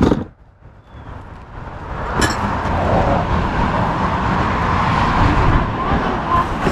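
Steady road noise of a moving car, a rushing hum that builds over a second or two and then holds. A sharp click near the start and another about two seconds in.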